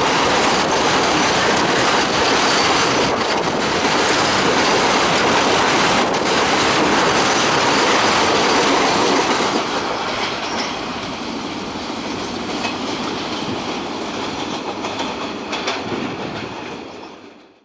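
Empty BCNA covered freight wagons rolling past close by at speed: a loud, steady rumble and clatter of steel wheels over the rail joints. It eases off from about halfway as the tail of the train passes and draws away, then fades out quickly at the very end.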